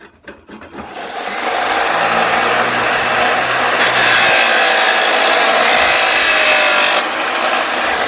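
Chop saw cutting through a metal bar. A loud, steady grinding starts about a second in and cuts off about seven seconds in as the wheel finishes the cut. The motor's whine carries on after that, falling slightly in pitch.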